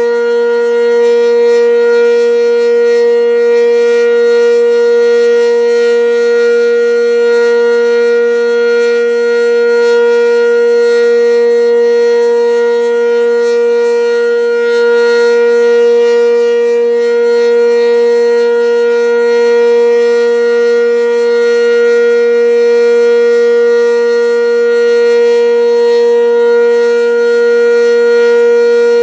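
Sentry 10V electromechanical outdoor warning siren sounding a loud, steady tone held at one pitch, the alert signal of a tornado drill siren test.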